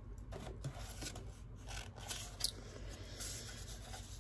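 Hands handling paper and cardboard inside a box: faint rustling and rubbing with a few light scrapes, as a rolled paper scroll is lifted out.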